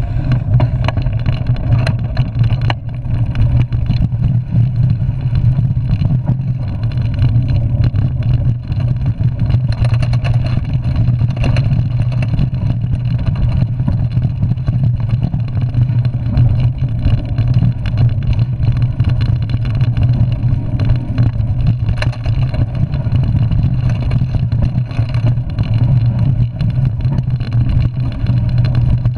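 Steady low rumble of a mountain bike riding a rough dirt trail, carried through the handlebar-mounted camera, with frequent small rattles and knocks from bumps.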